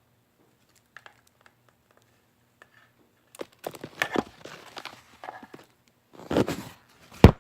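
Close handling noise: a few faint clicks, then irregular rustling and clattering from about halfway through, ending in one sharp, loud knock.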